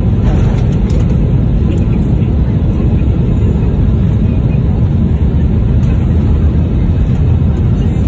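Steady low rumble of an airliner's engines, heard from inside the passenger cabin while the plane moves on the ground.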